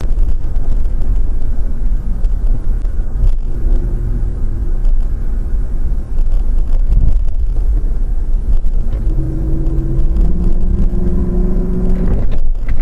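Car driving on a road, heard from inside through a dashcam: a heavy, steady low rumble of engine and road noise, with an engine note rising slightly over the last few seconds.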